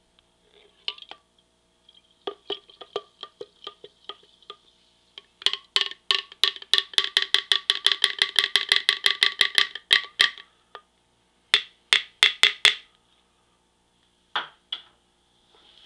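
A spoon stirring fermenting rice wine in a glass jar, clinking against the glass with a short ringing. Scattered clinks at first, then a fast run of about five clinks a second for some five seconds, then a few more near the end.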